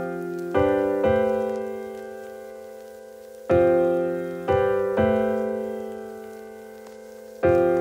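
Background music: soft piano chords struck and left to ring and fade away, in slow groups of two or three with a pause of a couple of seconds between groups.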